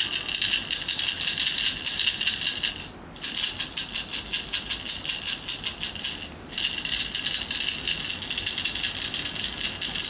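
A baby's plastic rattle, small beads in a clear plastic ball, shaken rapidly and steadily, stopping briefly twice: about three seconds in and about six seconds in.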